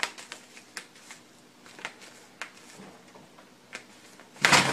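Cat scraping its claws at a small mat on a wooden floor: a string of irregular sharp scratches and ticks, with a louder rough burst of noise near the end.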